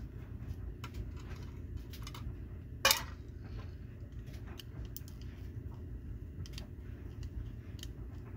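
Small screwdriver working the screws out of a diecast model truck's metal baseplate: faint scraping and light metallic clicks, with one sharp, loud click about three seconds in.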